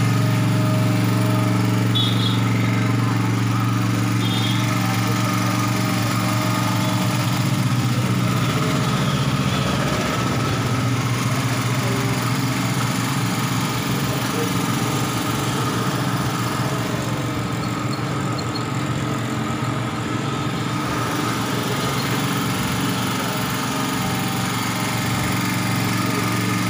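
A 1 kVA Pelican portable generator's small engine running steadily, an even engine hum with no change in speed.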